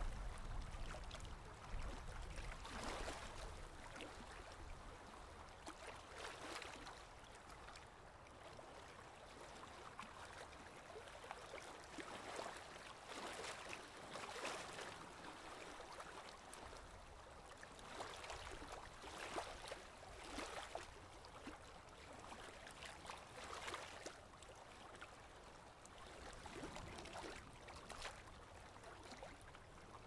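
Rain and running-water nature ambience, a steady wash that swells and eases every few seconds.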